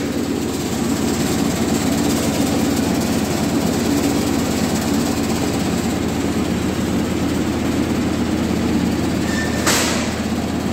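Small two-deck vibro grader running: a steady motor hum with a continuous fine rattle from the vibrating screen decks. About three-quarters of the way through, a plastic bag rustles briefly.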